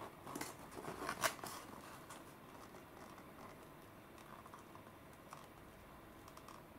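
Clear plastic clamshell packs being picked up and handled: a quick run of plastic clicks and crinkles in the first second and a half, the loudest just after a second in, then only faint scattered taps.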